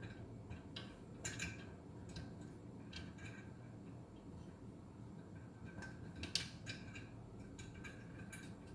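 Scattered light metal clicks and clinks from handling headlamp brackets and bolts, the two louder ones about a second in and about six seconds in.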